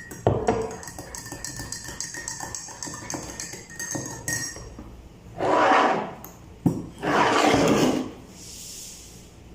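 A spoon stirring honey into a cup of ginger tea, clinking rapidly against the cup for about four seconds with a faint ringing tone. Then come two loud whooshing noises, each about a second long.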